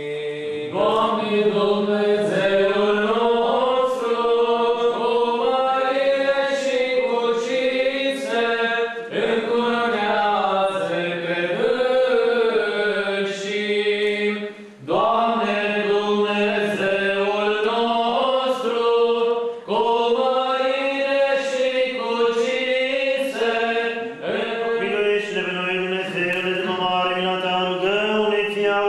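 Church choir singing Eastern Orthodox liturgical chant in several voices, a low note held steadily beneath a moving melody, with brief pauses between phrases.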